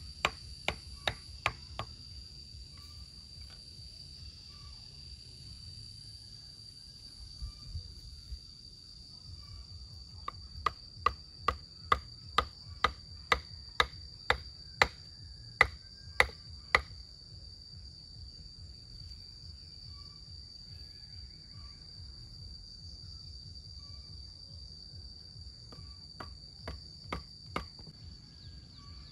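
Bamboo stakes being pounded into the ground with a hand-held piece of wood: runs of sharp knocks, a few at the start, a long run of about two a second from about ten seconds in, and four more near the end. Crickets keep up a steady high chirring throughout.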